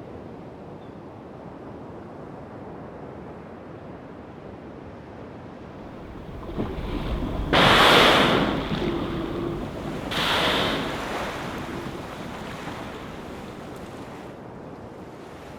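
Fin whales blowing at the surface: two loud whooshing exhalations about two and a half seconds apart, the first the louder, over steady wind and sea noise.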